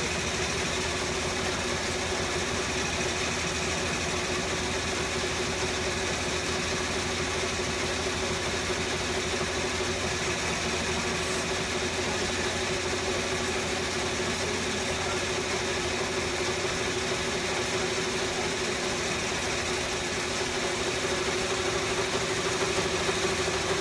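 Embroidery machine stitching out a design: a loud, steady run of rapid needle strokes over a constant motor whine.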